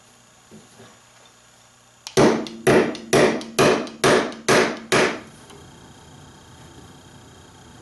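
Upholsterer's tack hammer driving a tack into the chair's wooden seat rail to anchor the spring-tying cord: seven sharp strikes, about two a second, that then stop.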